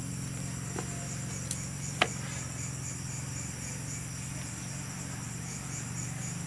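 Steady high-pitched chirring of insects over a low steady hum, with one sharp tap about two seconds in.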